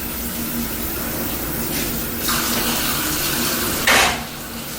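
Hot water running from a tap to top up a pot of boiling pasta, a steady rush that grows brighter about two seconds in. A short, loud burst of noise about four seconds in.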